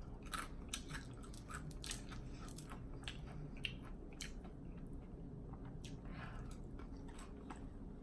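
Open-mouthed chewing with wet lip-smacking, close to the microphone: short irregular clicks and smacks, a few each second.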